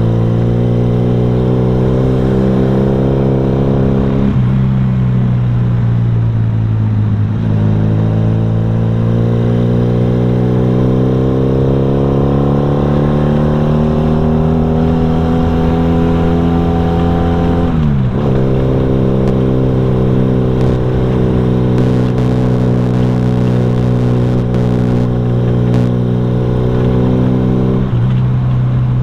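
Motorcycle with an aftermarket racing exhaust running while riding. Its note holds steady, climbs slowly for about ten seconds, drops suddenly a little past the middle, then runs steady again.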